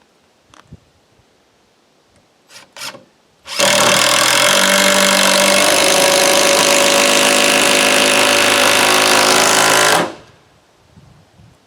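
A power tool runs loud and steady for about six and a half seconds, starting a few seconds in and cutting off sharply. A few light knocks come before it.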